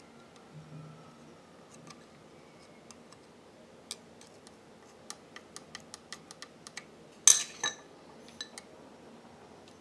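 Light metallic clicks and taps around an industrial sewing machine's rotary hook as a metal pointer works near it, with a quick run of about five ticks a second in the middle. A louder metallic clatter comes about seven seconds in.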